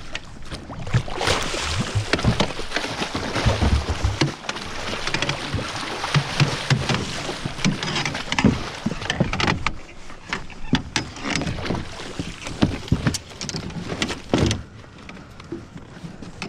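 A hooked salmon thrashing and splashing at the surface as it is netted beside a boat, with water sloshing and repeated sharp knocks against the boat. The splashing stops about two seconds before the end, once the fish is in the net in the boat.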